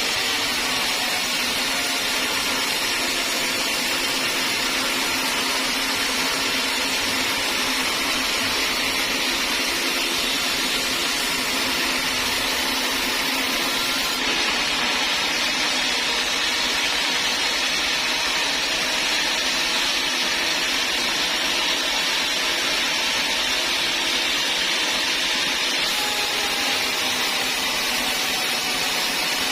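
Sawmill saw running steadily, a continuous high machine noise with slight shifts in its upper tone about halfway through and near the end.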